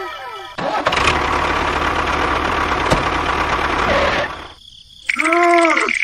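An engine starting and running, a rough noisy rumble that stops about four seconds in. Near the end comes a short added sound effect with a tone that rises and falls.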